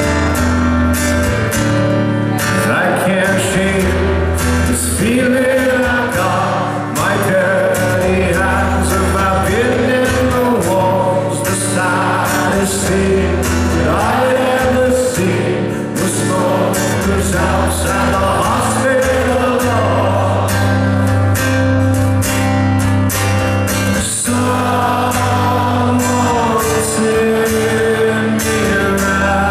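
Live music: a man singing to acoustic guitar, his long sung lines over sustained low notes.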